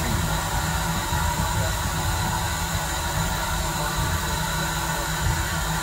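Steam locomotive heard from inside the cab: a steady hiss over a low rumble, with no distinct beat.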